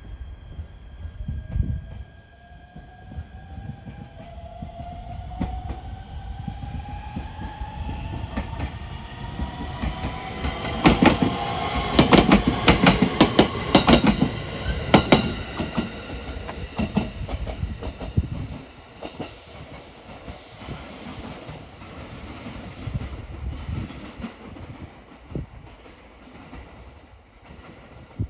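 Electric train accelerating past: a motor whine rising in pitch over the first several seconds, then loud clacks of the wheels over rail joints about 11 to 15 seconds in, fading away after.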